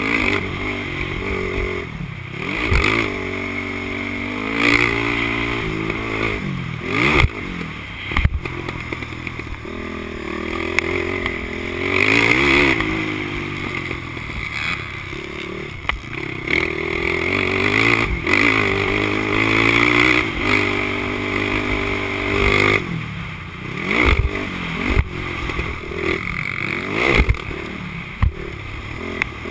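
Honda TRX450R quad's single-cylinder four-stroke engine revving hard and falling back again and again, as on a motocross track. Sharp knocks and rattles come through at intervals, several in the last few seconds.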